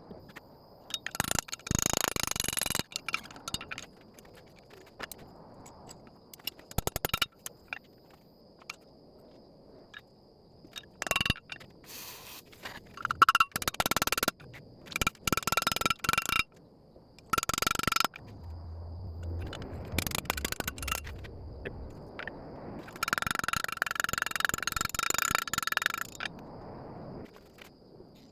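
Steel being worked at the forge: irregular bouts of scraping and clanking on metal, each with a ringing tone, the longest stretch near the end.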